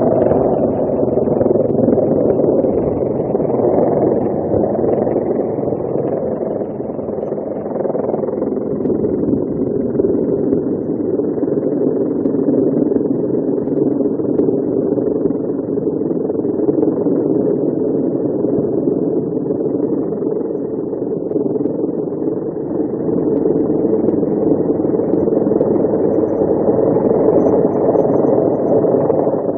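Helicopter hovering close overhead: a loud, steady, unbroken noise of its rotor and engines.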